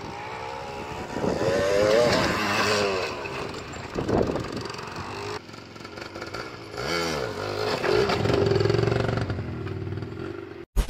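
Suzuki TS 200 R two-stroke single-cylinder enduro motorcycle being ridden off-road, its engine revving up and down again and again. There are abrupt cuts between clips and a few sudden short dropouts near the end.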